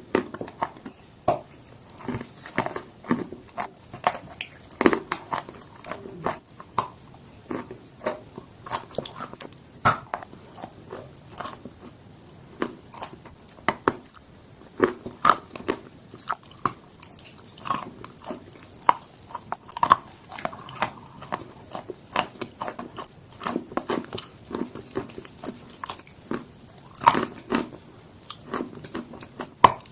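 Chalk being bitten and chewed: a long run of sharp, irregular crunches, one to a few a second.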